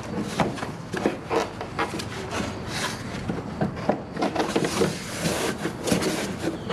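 A Jeep Wrangler JK's plastic engine cover being worked back into place over the engine: irregular clunks, knocks and rubbing of plastic as it is pushed down onto its mounts.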